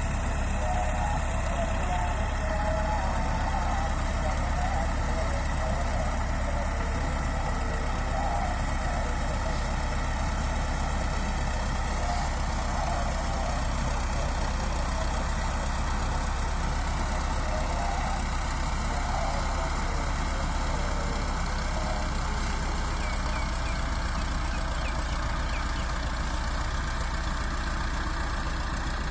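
Bulldozer engine running steadily at an even speed, with no revving.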